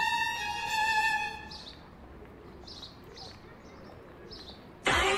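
A steady electronic phone tone held for about two seconds, then a few faint short high chirps, then loud background music starting near the end.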